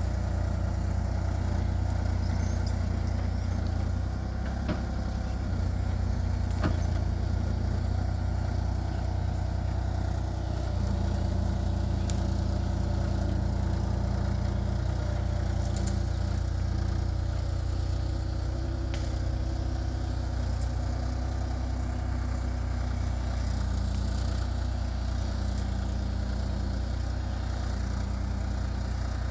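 Kubota KX033-4 compact excavator's diesel engine running steadily while working, with a couple of light clicks a few seconds in.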